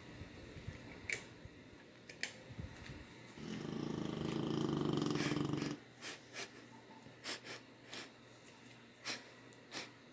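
A sleeping dog snoring: one long snore starting about three and a half seconds in and lasting over two seconds, with quieter breathing and a few short sharp clicks in the gaps between snores.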